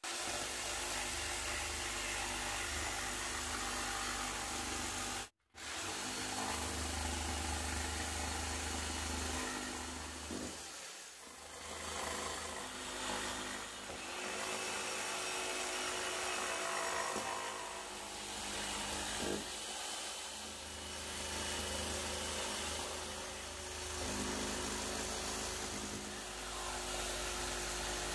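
Hand-held jigsaw running and sawing into a hollow core door, in one long continuous cut. It cuts out suddenly for a moment about five seconds in, and runs a little softer around eleven seconds.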